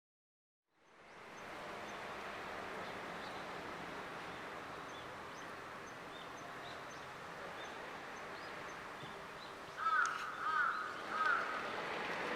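A crow cawing three times in quick succession about ten seconds in, over steady outdoor background noise that fades in after a second of silence.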